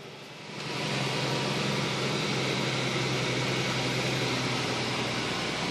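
Steady drone of a Western Star truck's diesel engine and road noise heard inside the cab, with a constant low hum; quieter for about the first half second, then even.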